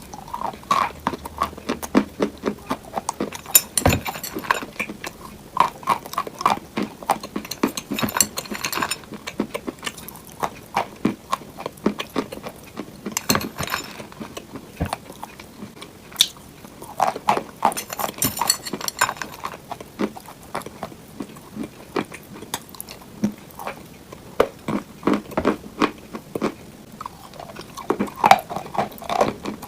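Fake-eating ASMR: irregular bursts of crunchy biting and chewing sounds made close to the microphone without real food, imitating someone crunching into cupcakes.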